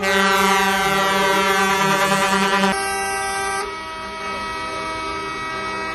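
Truck air horns sounding together in one loud, steady blast of nearly three seconds. Then horns keep sounding more quietly and steadily.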